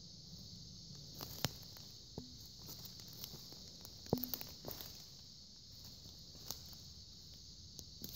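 A few slow, irregular footsteps with a steady, high-pitched insect chorus, crickets or similar, running behind them.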